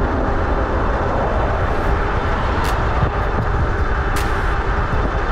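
Steady wind buffeting on the microphone with tyre rumble from the Hiboy P6 electric bike's 4-inch fat tires on asphalt, riding on throttle alone at about 24 mph. A few faint sharp ticks come through.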